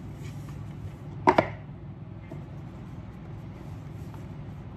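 A sharp double knock from a cardboard oracle-card box being handled, its lid or the box striking, about a second and a half in, over a steady low hum.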